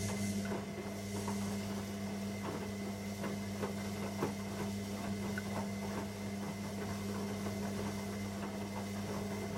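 Beko MVY 69031 PTYB1 washing machine turning its drum in a wash: a steady motor hum with irregular short squeaks and clicks. The owner hears this strange squeak only when the drum turns counterclockwise.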